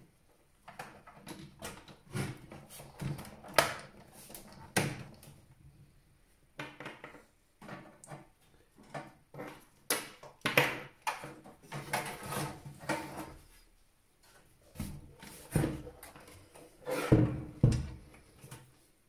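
Irregular clicks, knocks and rustling of hands handling parts and cables inside a desktop PC case, with a few heavier knocks near the end.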